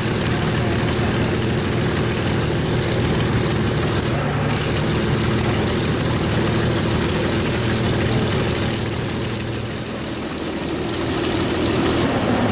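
Packard-built Rolls-Royce Merlin V-12 engines of an Avro Lancaster idling together, propellers turning, a steady deep engine drone that dips slightly in level about ten seconds in.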